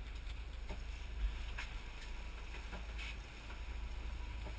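Sport-fishing boat running at trolling speed: a steady low rumble with wind on the microphone. A few light knocks and clicks come through, the loudest about a second in.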